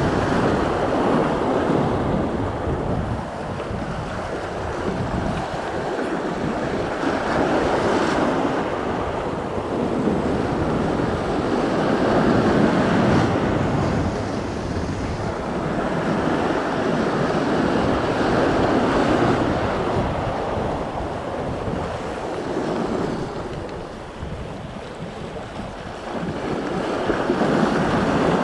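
Sea surf washing and breaking against the boulders of a rock jetty, swelling and easing every several seconds, with wind buffeting the microphone.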